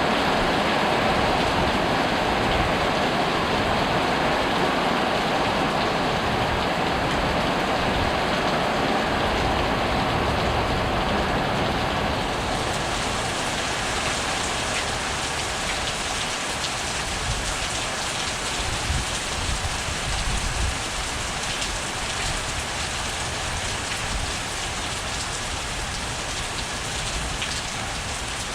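Heavy rain falling steadily, a dense even hiss that eases slightly over the stretch.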